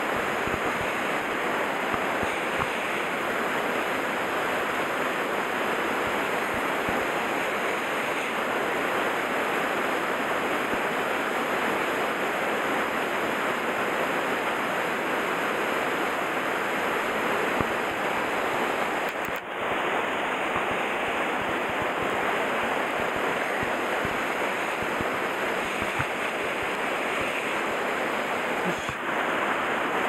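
Steady rush of a rocky mountain stream: water cascading and running over boulders into a pool.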